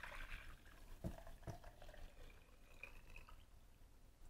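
Strained elderberry tea poured faintly from a pot into a glass measuring cup, with two light knocks about a second in.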